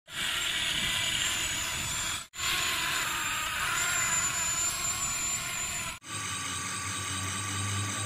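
Small electric motors and plastic gears of a toy RC excavator whirring steadily. The sound cuts off abruptly twice; after the second cut it runs on as a lower hum.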